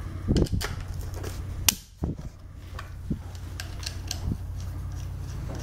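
Light metallic clicks and taps of bolts and standoff nuts being handled and fitted by hand through the drilled holes of a Kydex sheath half and its template, over a steady low hum.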